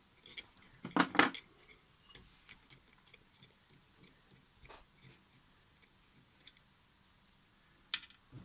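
Quiet workbench handling sounds: two knocks close together about a second in, faint scattered ticks, and a sharp click near the end, from hand tools and metal parts being handled while the mitre saw is cleaned.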